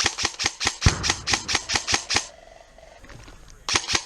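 Airsoft gun firing two long strings of rapid shots, about eight a second, with a pause of over a second between them.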